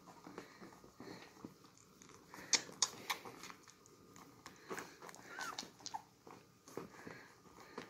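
Beagle puppies suckling at their mother's teats: faint wet smacking and clicking from their mouths, with a brief small squeak about five seconds in.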